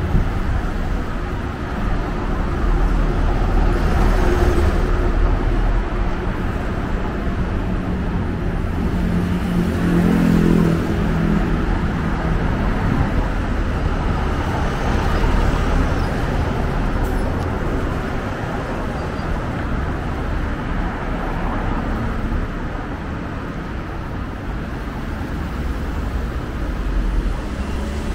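Steady city traffic noise, a low rumble with vehicles going by; a louder vehicle with a pitched engine note passes around ten seconds in.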